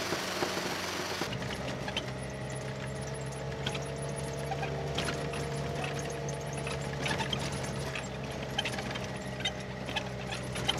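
Cabin noise of an off-road vehicle driving on a rough dirt track: a steady engine drone with a faint whine above it, and the body and fittings rattling and clicking over the bumps. About a second in, a hiss of wind drops away as the sound shifts to the inside of the cabin.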